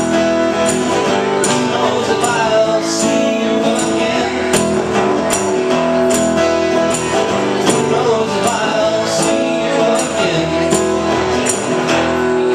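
Live acoustic duo: two acoustic guitars played together in sustained chords, with a bright percussive hit keeping the beat about every three quarters of a second.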